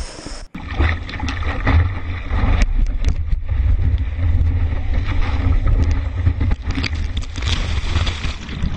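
Surf and wind noise from a camera riding a wave with a surfer: water rushing and wind buffeting the microphone, a heavy low rumble with scattered splashy crackles. It cuts in after a brief dropout about half a second in.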